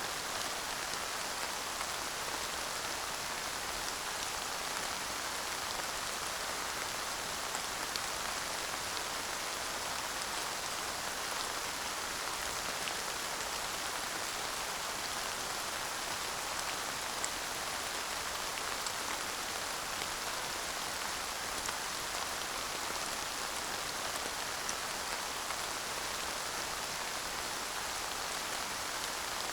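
Steady light rain falling, an even hiss with a few separate drops ticking now and then, no thunder.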